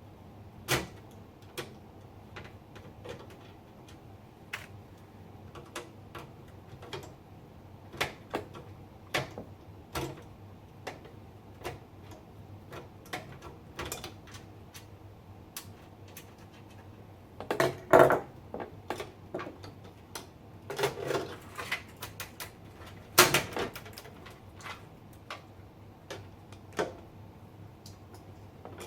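Irregular clicks, taps and light clatter of hard plastic and metal parts being handled while a fan is taken out of a PC case, with a few louder bursts of rattling in the second half.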